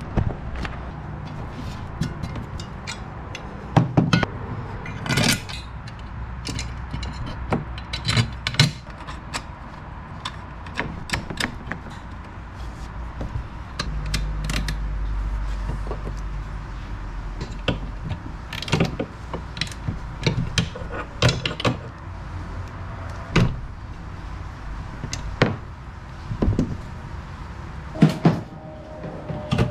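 Irregular clicks, clinks and knocks of hand tools and metal hardware being handled and fitted while the shifter bracket is remounted, with a low hum for a few seconds in the middle.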